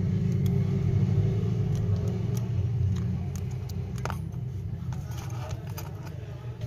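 Steady low hum, with a few faint light clicks.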